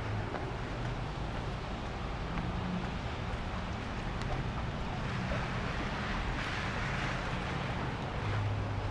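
Wind rumbling on the microphone over the steady hiss of traffic on wet city streets. The hiss swells for a few seconds past the middle, as tyres pass on the wet road.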